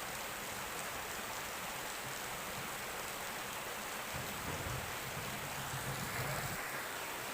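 Shallow river water running steadily, an even hiss. A low rumble joins it from about four seconds in to about six and a half seconds.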